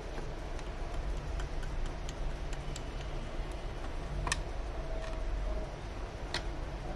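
Light plastic clicks and taps of a TV's speaker box and rear housing being handled and pressed into place, with two sharper clicks about four and six seconds in, over a steady low hum.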